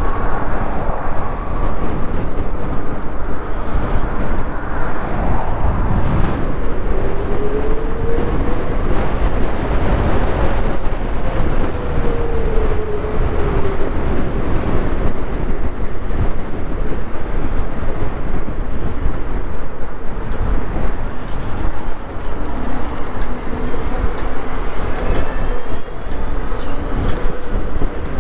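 Wind rushing over the microphone and road rumble from a moving e-bike, with a faint whine that rises and then falls in pitch about a quarter of the way through.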